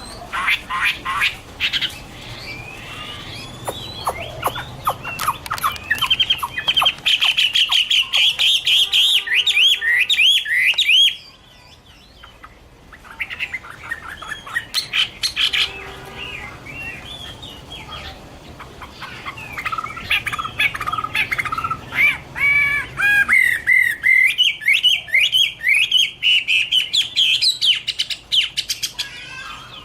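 Chinese hwamei (Garrulax canorus) singing: a fast, varied run of whistled phrases that slur up and down. The song breaks off about eleven seconds in, with only scattered notes, and resumes in full about twenty seconds in.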